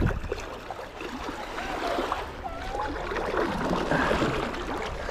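Sea kayak being paddled on calm water: the paddle blades dipping and dripping, with water trickling and gurgling along the hull.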